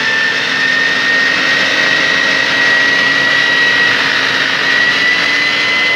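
Fire engine's motor and fire pump running with the pump engaged. A high whine rises slowly as the pump pressure is brought back up.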